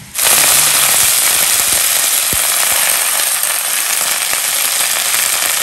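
Loud, steady sizzle of freshly washed, wet food dropped into hot oil in a pan, starting suddenly and holding even.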